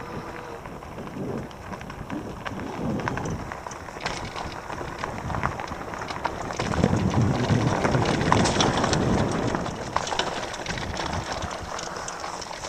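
Electric mountain bike riding over a dirt trail: tyres crunching on gravel with many scattered clicks and rattles. There is a louder low rumble for a few seconds past the middle.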